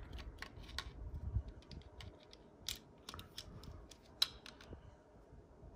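Light, scattered clicks and small metal knocks of a stainless Ruger Mark II .22 pistol's barreled receiver and grip frame being handled during reassembly. The sharpest click comes a little past four seconds in.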